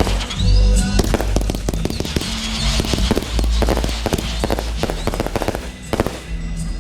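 Fireworks display: a dense run of rapid crackling bangs and bursts, thinning out near the end into a few single loud cracks.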